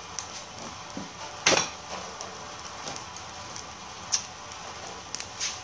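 Charcoal fire in a clay stove crackling under clams and beef on a wire grill rack, with a steady hiss and a few sharp pops. The loudest is a crack about a second and a half in.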